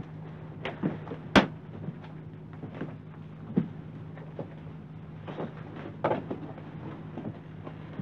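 A door bangs about a second and a half in, followed by scattered footsteps and shuffling, over a steady low hum.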